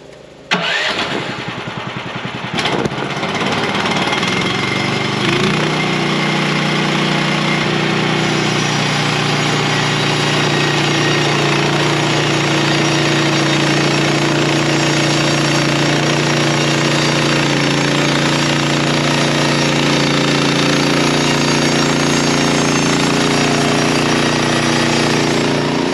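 Gas engine of a Timberthunder portable bandsaw mill starting about half a second in, then running steadily and stepping up to a higher speed about five seconds in.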